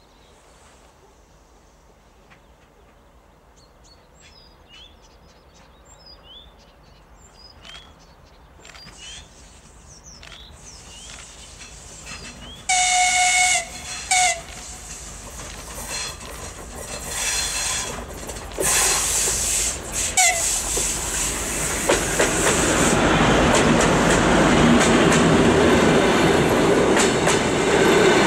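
A TEP70 diesel locomotive hauling a passenger train approaches over faint bird chirps. About halfway it sounds its horn, one long blast and then a short one. The engine and the rolling wheels grow steadily louder, and the coaches pass close by near the end.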